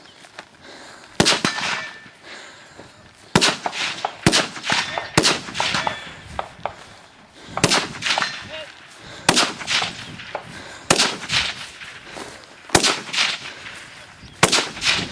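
Gunshots from a competitor firing at targets during a 3-gun stage: about nine single shots spaced one to two and a half seconds apart. A brief ringing follows some of them.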